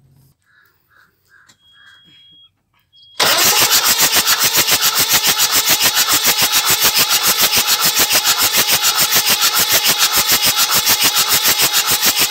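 Starter cranking a Kirloskar 4R-1040 four-cylinder diesel with its exhaust manifold removed, beginning about three seconds in. It makes a loud, fast, even chuffing of about eight pulses a second with a hiss, as air and water spray blow out of the open exhaust ports: the pistons are driving water out of the flooded cylinders.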